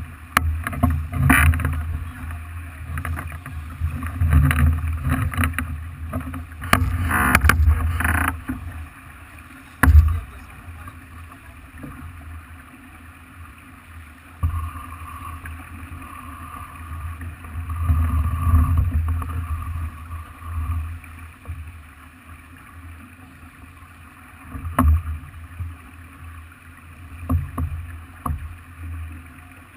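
Farr 40 racing sailboat under way: surges of low rumbling noise from wind and water, broken by several sharp knocks, the loudest about ten seconds in and again near twenty-five seconds.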